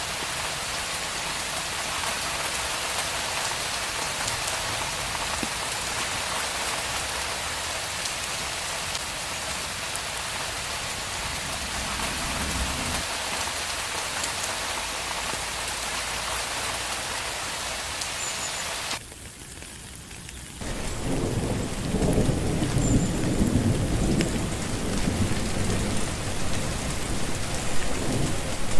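Steady heavy rain hissing. About two-thirds of the way through it drops away abruptly for a moment, then comes back louder with thunder rolling and rumbling under the rain.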